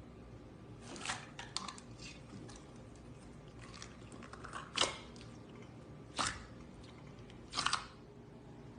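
Slime being squeezed and pressed by hand, giving short crackling pops and clicks. About five louder bursts are spread out with quiet between them, the loudest about halfway through.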